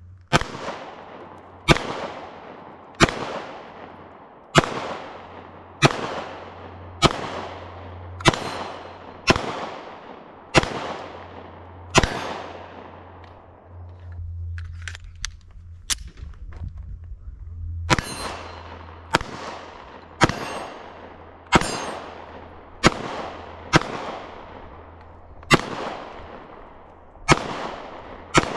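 Glock 43X MOS 9mm pistol fired in steady single shots, about one every second and a bit, each shot trailing off in echo. There is a pause of several seconds midway with only a few faint clicks, then the shooting resumes at the same pace.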